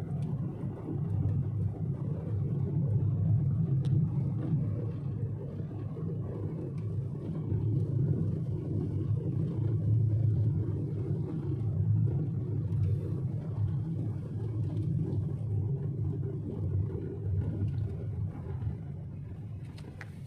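Car road noise heard from inside the cabin: a steady low rumble of tyres and engine while driving, growing quieter over the last few seconds as the car slows to a stop.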